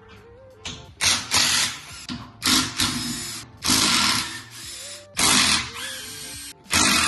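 Handheld power tool run in about six short spurts of whirring, backing out the bolts of a Honda Z3 transmission case.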